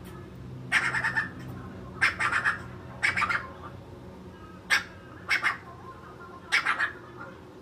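An animal calls six times in short, high-pitched bursts spread across a few seconds, over a faint low steady hum.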